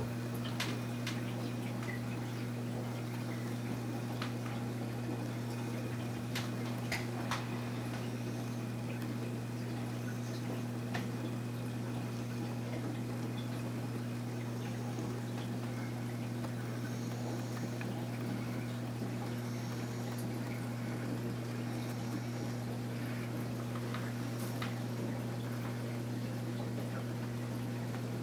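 Aquarium filter pump running: a steady low hum with water trickling and bubbling, and a few faint clicks here and there.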